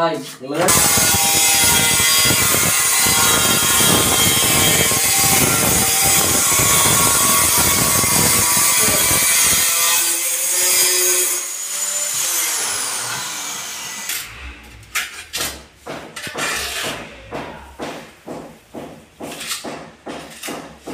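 A handheld power tool runs loudly for about ten seconds, then is switched off and winds down with a falling whine. Afterwards comes a run of light knocks and taps.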